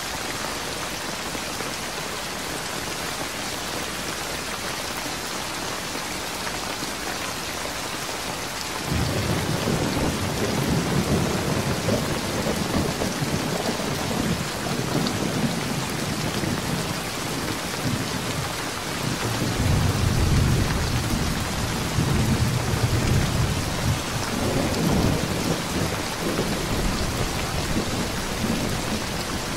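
Steady heavy rain hiss. About nine seconds in, a deep low rumble starts suddenly under the rain and rolls on, swelling and easing, until near the end.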